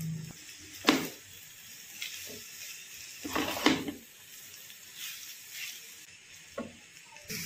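Wooden spatula stirring and tossing noodles in a frying pan: several short scrapes and soft knocks against the pan, the clearest about a second in and around three and a half seconds in, over a faint steady hiss.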